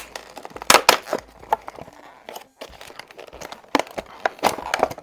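Retail packaging being torn and crinkled open by hand, in irregular sharp crackles and rips, loudest about a second in and again near the end.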